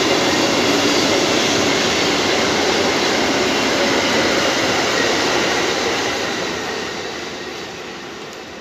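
Freight train of double-deck car-carrier wagons rolling past close by: a steady rumble of steel wheels on rail that fades away over the last couple of seconds as the end of the train goes by.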